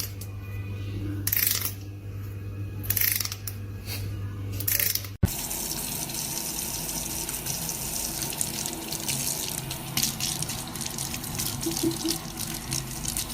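Water sounds: a few short splashy hisses at first, then, after a sudden change about five seconds in, a steady rush of running water like a tap.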